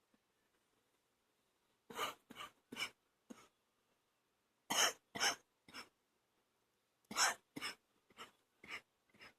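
A woman coughing in three fits of three to five short coughs each, with pauses between them, starting about two seconds in; a phlegmy cough.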